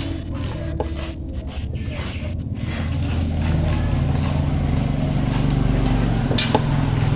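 A small motorcycle engine idling steadily, its hum shifting slightly partway through, with a sharp click a little over six seconds in.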